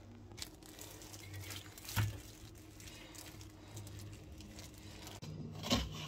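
Faint kitchen handling sounds over a low steady hum: a single light tap about two seconds in and a short knock near the end.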